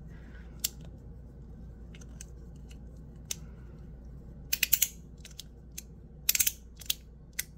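Sharp clicks from a Ti Rhythm fidget being worked by hand: a few single clicks spread out, then quick clusters of clicks about four and a half and six and a half seconds in.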